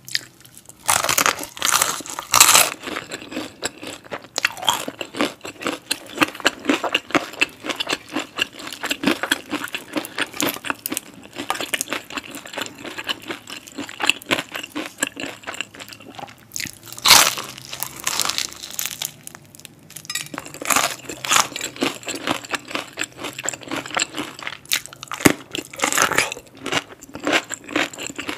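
Crispy spicy fried chicken being bitten and chewed close to the microphone: dense crackly crunching, with several louder bites standing out.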